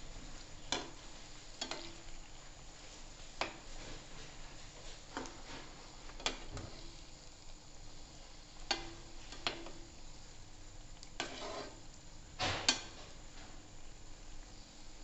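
Gulgule (jaggery-and-semolina fritters) deep-frying in hot oil with a steady sizzle, while a metal slotted spoon turns them, clinking and scraping against the pan about a dozen times at irregular moments.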